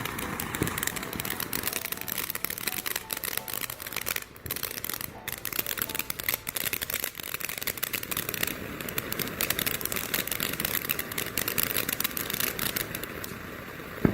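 Magic Beans ground fountain firework spraying and crackling in a dense, fast stream of small pops, with a few faint short whistles.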